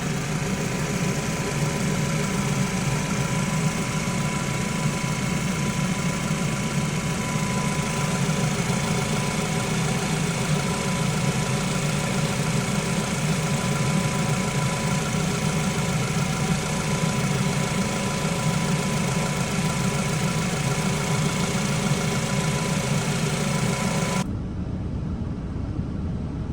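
2007 Toyota Camry's 2.4-litre four-cylinder engine idling steadily while the newly refilled cooling system bleeds out trapped air. Near the end the sound becomes abruptly quieter and duller.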